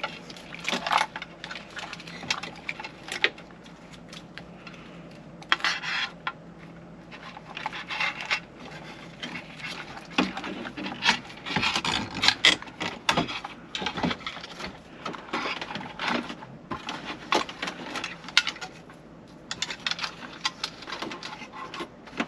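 Wiring harness, plugs and plastic dash trim being handled and pushed into the dashboard cavity behind a car stereo: irregular plastic clicks, rattles and scraping, with a cluster of sharper knocks around the middle.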